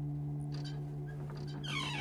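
Dark intro soundtrack: a steady low drone with a few faint clicks, and near the end a pitched cry that falls sharply in pitch.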